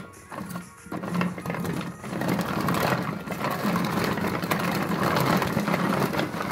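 Manual food chopper being worked by hand: its blades whirring and rattling as they chop onion, tomato and cucumber chunks in the plastic bowl. Stop-start at first, the whirring turns continuous and louder about two seconds in.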